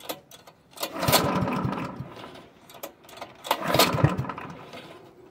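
Honda HR215 mower's single-cylinder engine being pull-started twice with the recoil starter, about a second in and again after about three and a half seconds. Each pull spins it over in a quick run of strokes that fades away without it keeping running: the engine won't start.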